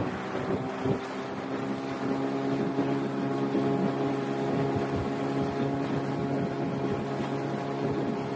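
Motorboat engine running at a steady speed, with the hiss of water and wind around the hull. There is a brief thump about a second in.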